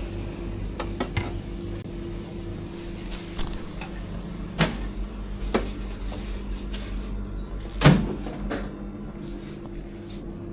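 Kitchen handling sounds: scattered knocks and clatter, the loudest about eight seconds in, over a steady electrical hum.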